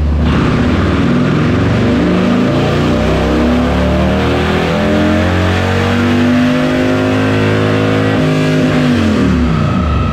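Harley-Davidson Fat Bob's 128ci Milwaukee-Eight V-twin, with a Two Brothers 2-into-1 exhaust, pulling hard on a chassis dyno. The engine note climbs steadily in pitch for about eight seconds, then falls away as the throttle is closed near the end.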